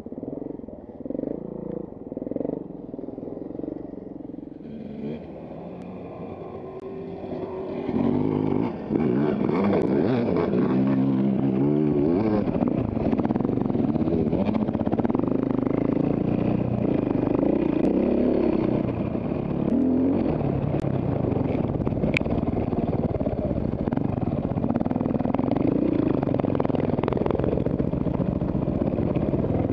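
Enduro dirt bike engine heard on board while riding a dirt trail, quieter for the first several seconds, then loud from about eight seconds in, revving up and down with the throttle, with scattered clicks and rattles.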